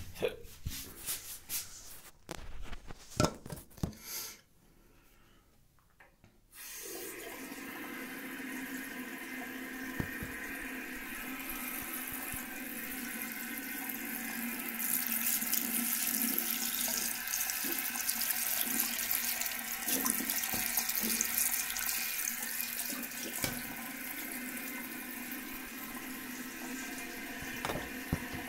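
A few knocks and clicks, then about six seconds in a tap opens and water runs steadily into the sink, splashing over an electric shaver's head as it is rinsed under the stream. The running water gets a little louder about halfway through.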